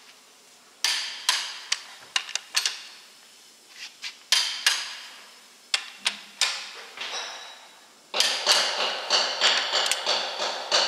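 Click-type torque wrench ratcheting on cylinder-head bolts of a Scania 16-litre V8 engine: sharp metallic clicks with a short ring, spaced out at first, then a fast run of ratchet clicks from about eight seconds in.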